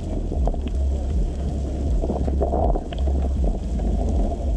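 Wind buffeting the camera microphone: a steady low rumbling rush with small rises and dips in loudness.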